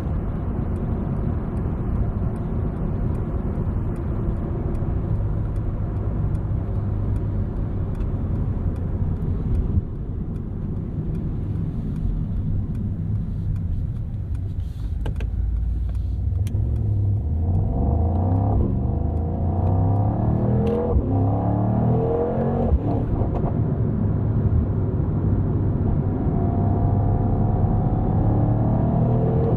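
Mercedes-AMG GT 63's twin-turbo V8 running at a steady low rumble with road noise, then from about halfway through accelerating, its pitch climbing and dropping back in steps as it works through the gears, and climbing again near the end.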